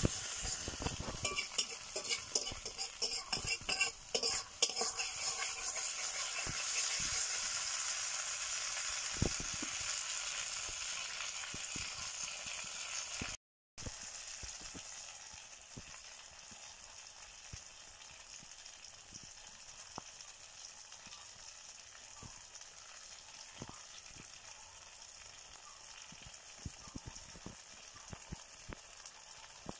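Chicken pieces in masala sizzling in an iron kadai, stirred and scraped with a wooden spatula for the first dozen seconds or so. After a brief break about halfway through, the sizzling goes on steadier and quieter with occasional small pops.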